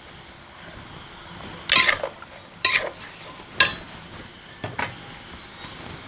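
Metal spoon scraping and knocking against the inside of a clay mortar as a papaya salad is tossed, about four separate strokes.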